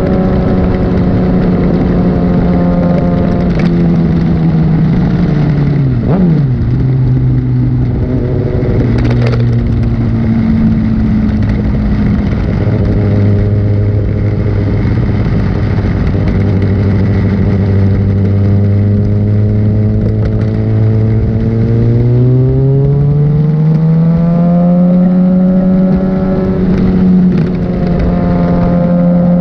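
A litre-class sportbike engine running under way. Its pitch drops about six seconds in as the revs fall, holds steady at lower revs for a long stretch, then rises smoothly again as it accelerates near the end.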